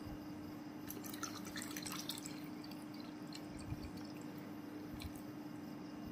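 Water poured from a plastic bottle into a plastic cup of whisky, splashing and bubbling for a second or so about a second in, then a few drips. A steady low hum runs underneath.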